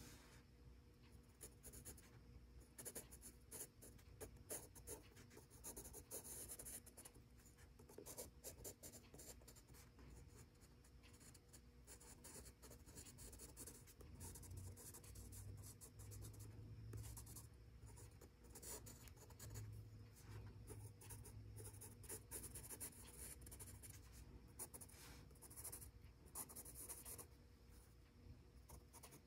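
Faint scratching of a Faber-Castell Pitt Graphite Matt HB pencil on gray sketchbook paper, many quick back-and-forth shading strokes in steady runs.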